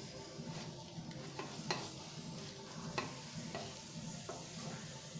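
Cheese-stuffed paratha frying in oil on a non-stick tawa: a steady, fairly faint sizzle, with sharp taps of a wooden spatula against the pan about once a second.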